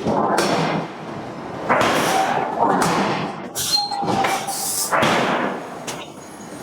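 Hydraulic forging hammer working a hot steel billet: a run of heavy strokes about a second apart, each with a loud noisy rush and hiss, easing off near the end.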